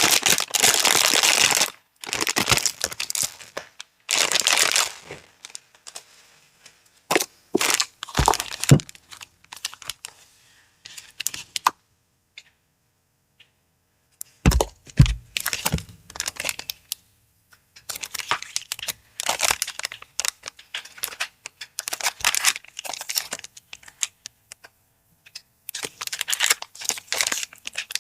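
Paper packaging handled by hand during an unboxing: crinkling, rustling and tearing in irregular bursts, with a long tear at the start, a pause near the middle and a few soft knocks.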